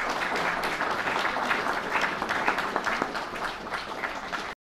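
Audience applauding: many people clapping at once, which cuts off abruptly near the end.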